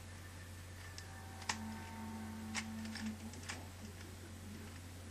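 A 3x3 Rubik's cube being turned, its layers giving a few sharp clicks, the clearest about one and a half, two and a half and three and a half seconds in. The clicking comes from a worn, loose cube. A steady low hum runs underneath.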